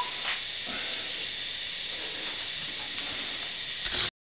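Steady hiss of background noise with a couple of faint knocks; the sound drops out abruptly for a moment near the end.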